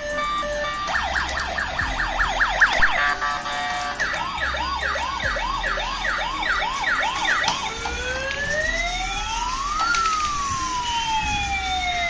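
Toy police car's electronic siren sound effect cycling through patterns: a short beeping tune, then about a second in rapid rising yelps, then a quick warbling chirp, and near the end a slow wail that rises and falls.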